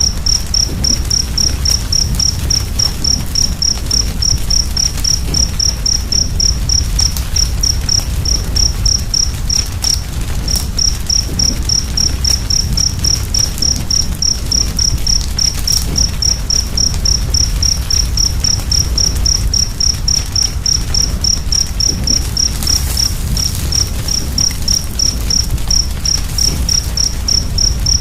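Crackling fire with a dense low rumble and faint scattered pops. Over it a cricket chirps steadily, about three short high chirps a second, pausing briefly once.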